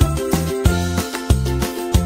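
Cheerful background music with a steady beat, about three beats a second, over a bouncing bass line.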